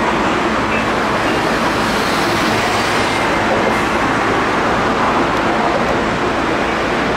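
Osaka Metro Midosuji Line subway train moving along the platform: a steady, loud rushing and rumbling noise that keeps an even level throughout.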